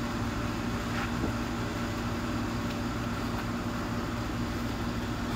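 Steady low mechanical hum with a constant tone, unchanging throughout.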